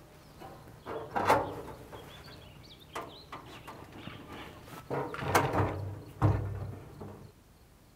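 A hand-held screwdriver and screws clinking and knocking against the grill's sheet-metal chamber as the hopper screws are driven in by hand: a few irregular sharp knocks and rattles, the loudest about a second in and again after five seconds.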